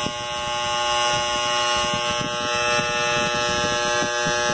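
Batam 250S welding machine switched on and buzzing steadily, a hum of several fixed tones with a rough, uneven rattle underneath. The owner finds this noise loud and is unsure whether it is normal, though the machine welds fine.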